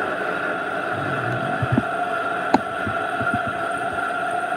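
Small benchtop metal lathe running with its automatic carriage feed engaged: a steady machine whine with a few short knocks about halfway through.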